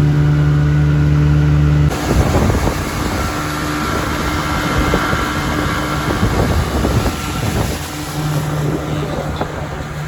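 A boat's engine running steadily under way. About two seconds in, the sound changes abruptly to a rough, uneven rush of wind and water noise, with the engine fainter beneath it.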